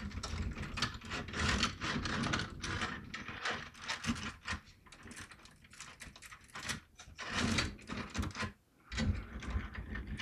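Handling noises: an irregular run of clicks, knocks and rustles as PC parts and their packaging are handled, with a brief pause near the end.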